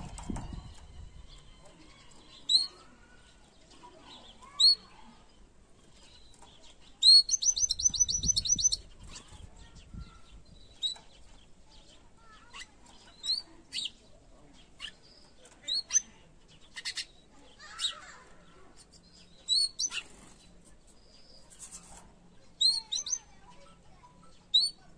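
Domestic canary calling with short, sharp rising chirps every second or two, with one fast trill of about ten notes a second lasting a second and a half, some seven seconds in.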